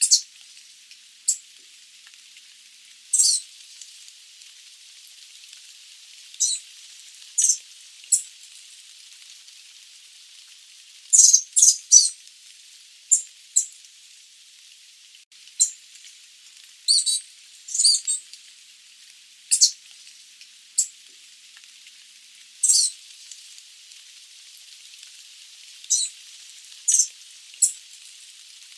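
Sooty babblers giving short, high-pitched call notes at irregular intervals, some singly and some in quick clusters of two or three.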